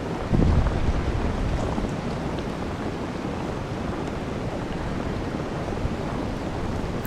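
Blizzard wind blowing across the microphone as a steady low rumble, with a stronger gust about half a second in.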